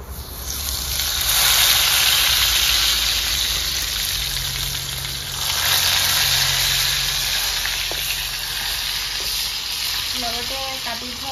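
Sliced onion dropped into hot oil in an iron wok, sizzling loudly as it hits the oil. The sizzling swells again about five and a half seconds in while the onion is stirred with a slotted metal spoon.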